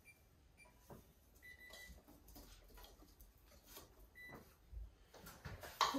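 Wall oven's control panel beeping as its keys are pressed to set the preheat, with a longer beep about one and a half seconds in and a short one near the end. Faint clinks and scrapes of a wire whisk in a stainless steel mixing bowl.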